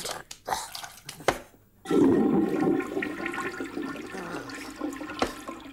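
Toilet flushing: a few short clicks, then about two seconds in a sudden rush of water that slowly dies away.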